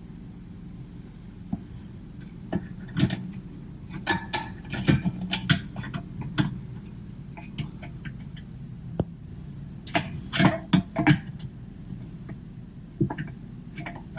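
Irregular clicks and knocks of hand tools and metal suspension parts being handled while a camber-kit control arm is fitted, in clusters, over a steady low hum.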